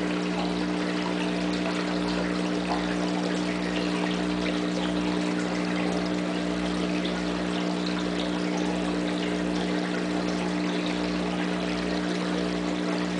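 Aquarium filter running: a steady trickle of pouring water with a constant electric hum from its pump motor.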